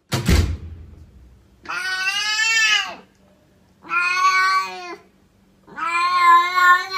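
A short thump right at the start, then a cat meows three times in long, steady calls, the third the longest.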